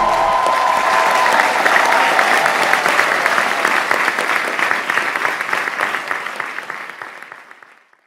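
Crowd applause, a dense patter of clapping that fades out gradually to silence near the end, with the last notes of a short music sting dying away at the start.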